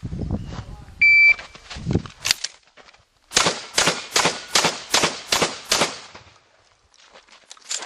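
Shot timer's start beep, one short steady tone about a second in, then a shotgun shot. A rapid string of about eight semi-automatic shotgun shots follows, roughly three a second.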